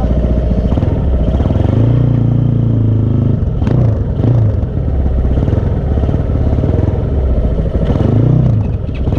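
Motocross bike engine running, its pitch rising and falling twice: once around two seconds in and again near the end. A short clatter comes a little under four seconds in.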